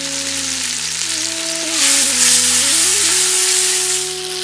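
Chopped tomatoes sizzling in hot peanut oil in a kadhai, growing loudest about two seconds in and easing toward the end.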